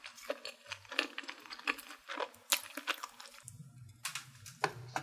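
Wooden chopsticks clicking and scraping against a wooden board while picking up stir-fried noodles: a string of short, sharp clicks. A low hum comes in about three and a half seconds in.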